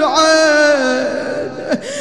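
A man's voice chanting a mournful Arabic lament, holding one long note that slides slightly down and fades after about a second, then softer wavering notes.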